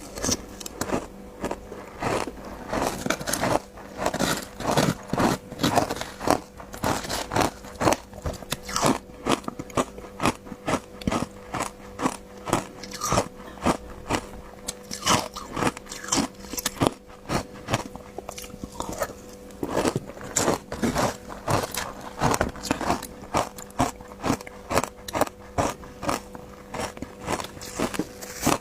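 Ice being bitten and chewed close to the microphone: a rapid, irregular run of hard crunches that never pauses for long, over a faint steady hum.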